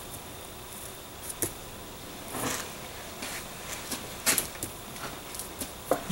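Gloved hands pressing and sliding over a high-density foam board set in a concrete countertop mold: soft rubbing with a few sharp clicks and light knocks scattered through.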